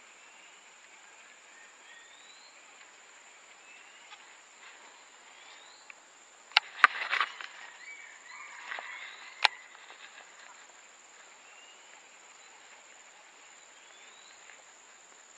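Riverside forest ambience: a steady high-pitched insect whine with short rising whistled calls every couple of seconds. About six and a half seconds in come a few sharp clicks and a brief rustle of handling, with one more click a few seconds later.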